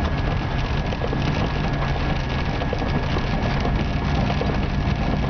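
Steady road noise inside a car's cabin at highway speed: the engine running with tyre hiss from the wet road and rain hitting the windshield.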